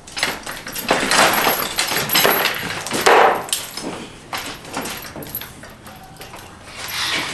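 Metal clattering, knocks and scuffling as a goat's ear is clamped with a hand tattoo clamp and the goat shifts. The loudest, busiest part is in the first three or four seconds, with scattered knocks after.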